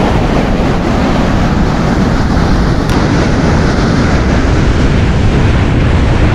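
Wind buffeting the microphone in a loud, steady rumble over the rush of surf breaking on the beach.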